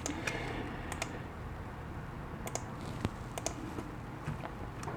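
A computer being worked by hand: about eight sharp clicks at uneven intervals, with pauses between them.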